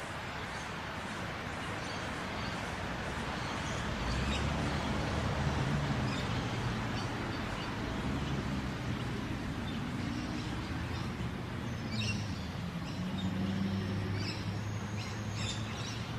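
Outdoor street ambience: a steady wash of background noise with a low vehicle-like hum coming in about four seconds in, and a few brief bird chirps in the second half.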